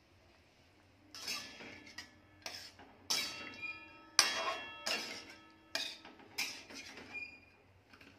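Metal spatula clinking and scraping against a metal kadhai while stirring mustard paste into a fish curry: about nine sharp clinks, each with a brief metallic ring.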